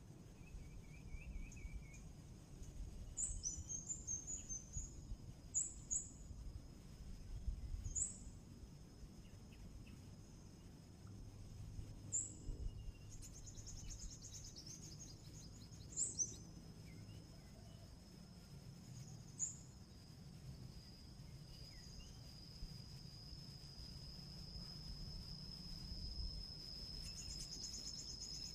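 Birds giving short, sharp chirps every few seconds, with a few brief trills, over a steady high-pitched insect drone that grows louder in the second half.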